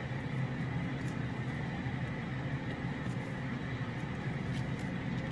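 A steady low hum at a constant level, with a few faint, short papery crackles from a tomatillo husk being peeled by hand.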